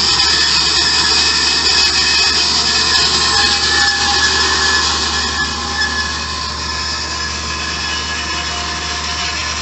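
Hyd-Mech S-20 Series II horizontal bandsaw running, its blade giving a steady high metallic screech that eases a little about halfway through.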